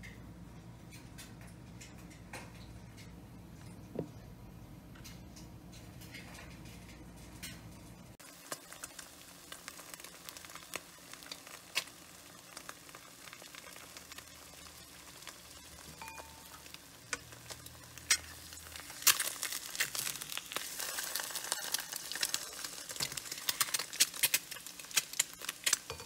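Eggs frying in oil in a nonstick pan, sizzling and crackling with many small pops. The crackle sets in about a third of the way through after a low steady hum, and grows denser and louder in the last third as a spatula is worked in beside the eggs.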